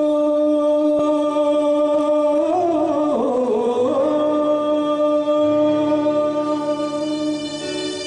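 Harmonica played solo into a microphone: a slow melody of long held notes, with a wavering bend in pitch about a third of the way in. Soft low sustained accompaniment notes join underneath.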